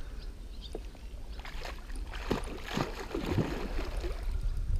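Water splashing as a hooked carp thrashes at the surface while being played on a bent rod, the splashes scattered through the middle, over a steady low rumble.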